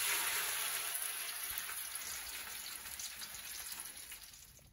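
Whole angel fish sizzling in hot oil on an oven tray: a steady frying hiss that starts suddenly and slowly dies away.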